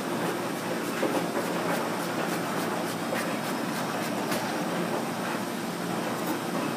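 Large French chef's knife dicing a shallot on a plastic cutting board: a quick run of chopping taps over steady background noise.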